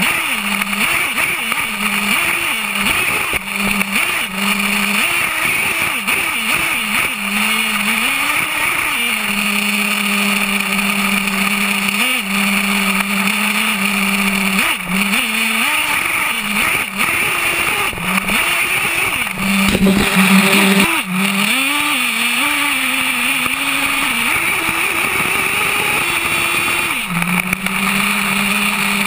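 Small two-stroke nitro engine of an HPI Savage X 4.6 RC monster truck, heard from a camera mounted on the truck. It holds a steady high-pitched note and revs up and down several times as the truck drives over sand, with a steady rushing hiss and a louder rush about twenty seconds in.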